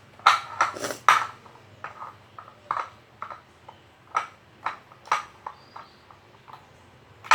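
Spoon stirring slime in a bowl and knocking against the bowl: irregular sharp clinks with a brief ring. There is a quick run of clinks in the first second, then single ones every half second or so, and the loudest comes near the end.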